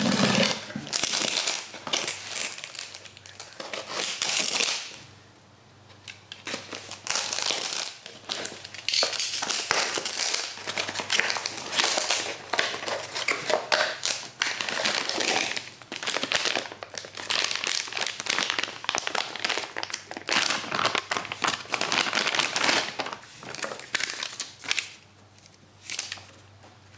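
Cardboard box and plastic packaging being handled and opened: irregular crinkling, rustling and crackling, with a short lull about five seconds in and another near the end.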